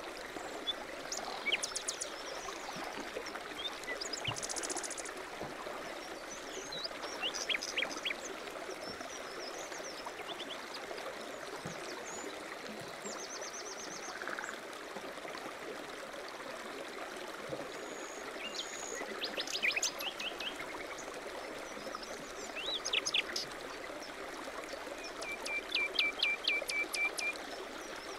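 A small stream running with a steady babble while songbirds chirp and call over it, one trilling in a quick series near the end.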